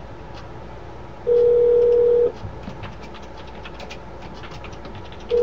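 Telephone ringback tone on the line while a call rings through: a steady tone about a second long, starting again just before the end, over faint line hiss and scattered clicks.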